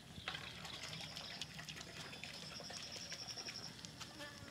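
Faint outdoor ambience: a steady, high, finely pulsing buzz with scattered small clicks and taps.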